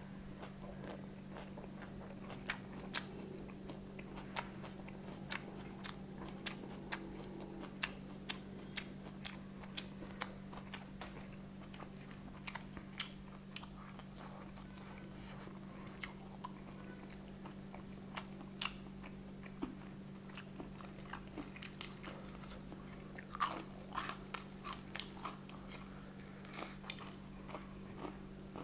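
A person chewing crispy fried chicken close to the microphone: irregular wet clicks and crunches of the mouth, busiest and loudest near the end, over a steady low hum.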